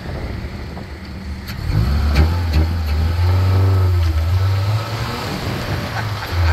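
Honda Accord's F22 four-cylinder engine with a cheap aftermarket intake, pulling away from a stop. It is fairly quiet at first, then gets loud under acceleration about two seconds in. Near the end it dips briefly before pulling loud again.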